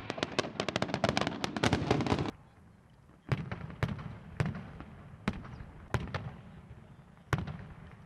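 Firecrackers going off: a rapid, dense string of sharp bangs for about two seconds, which breaks off abruptly, then single sharp bangs about once a second.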